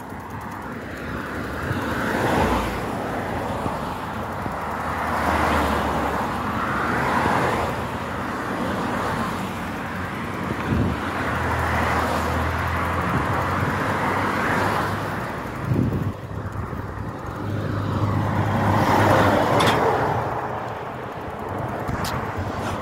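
Wind and road noise while riding a bicycle along a street: a rushing noise that swells and fades every few seconds, with a couple of sharp clicks near the end.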